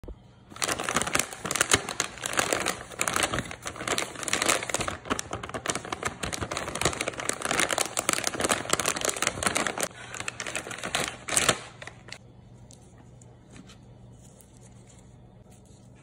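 Plastic candy bag crinkling and crackling as hands dig into it and pull out marshmallow cones. The crinkling stops about three quarters of the way through, leaving only faint soft handling.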